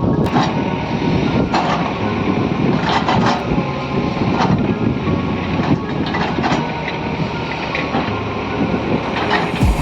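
Excavator working: its engine running under a steady rumble, with irregular clanks every second or two.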